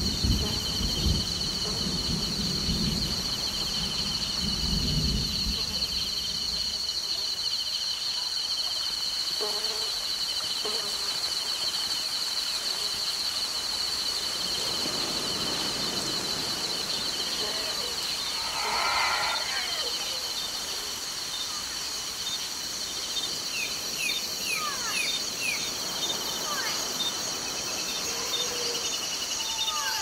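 Tropical rainforest ambience: insects keep up a steady high-pitched buzz over a hiss of rain, while a low thunder rumble fades out in the first several seconds. Bird calls come in past the middle, followed by a run of short falling whistles.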